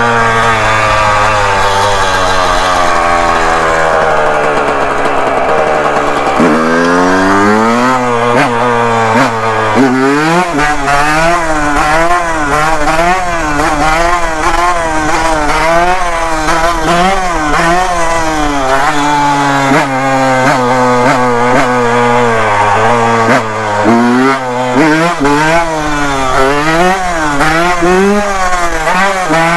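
Yamaha YZ125 two-stroke single-cylinder dirt bike engine, heard from the rider's seat while riding. Its pitch falls slowly for the first several seconds as it rolls off. After that the throttle is opened and closed again and again, so the engine note rises and falls in quick swoops.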